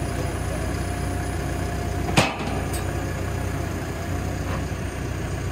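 Telehandler's diesel engine running steadily at low revs, with a single sharp knock about two seconds in and a faint click just after.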